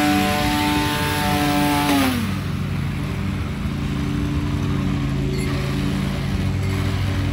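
Small lawn-care power equipment engine running at high speed, then dropping in pitch about two seconds in as it is throttled down, settling into a lower steady run.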